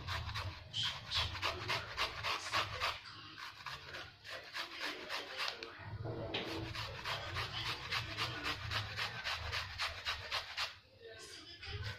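Unripe saba banana rubbed quickly up and down a stainless steel grater, a run of rhythmic rasping strokes. It pauses briefly about four seconds in and again near the end.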